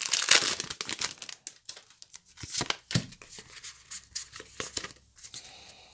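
Foil Pokémon booster pack being torn open, its wrapper crackling and crinkling densely for about the first second and a half, then scattered crinkles and small clicks that thin out as it is handled.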